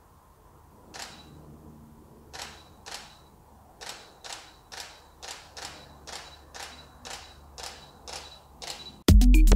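DSLR camera shutter firing again and again, tripped by a MIOPS smart trigger each time its laser beam is broken: a few single clicks, then about two clicks a second. Loud electronic music cuts in near the end.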